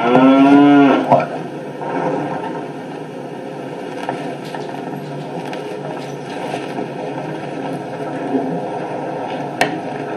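A man's drawn-out, moan-like vocal sound about a second long, rising in pitch at its start, then low room noise with faint background murmur and a single click near the end. It is heard as a recording played back through a speaker and re-recorded.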